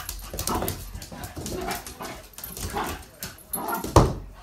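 Two puppies, a cockapoo and a French bulldog–pug cross, play-fighting: short dog noises about twice a second, with light clicks, and a sharp knock about four seconds in.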